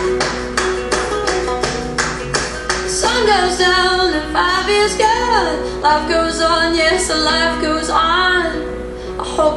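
A song with steady strummed acoustic guitar. About three seconds in, a sliding, wordless vocal line joins it.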